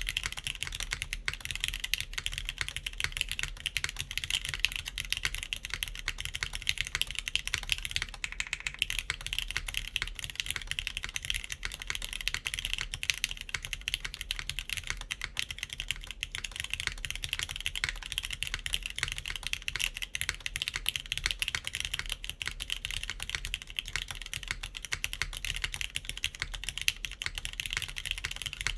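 Continuous fast typing on a top-mounted KBDfans Tofu60 3.0 mechanical keyboard with factory-lubed TypePlus NK Classic Blue switches, GMK keycaps and a PEI plate: a dense, steady stream of keystroke clicks.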